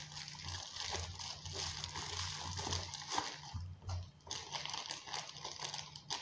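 Bubble wrap and a thin plastic bag crinkling and rustling as they are handled and pulled off, with a short lull about two-thirds through.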